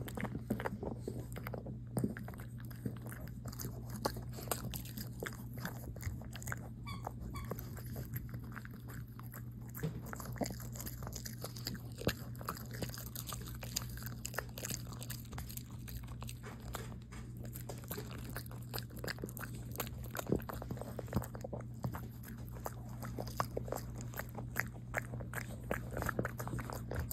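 Shih Tzu puppy crunching and chewing cabbage leaves: a quick, uneven run of crisp bites and smacks throughout, over a steady low hum.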